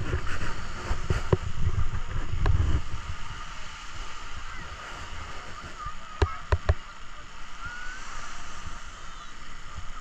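Beach ambience: faint chatter of people on the sand over a steady background wash, with wind rumbling on the microphone in the first three seconds and a few sharp knocks about six seconds in.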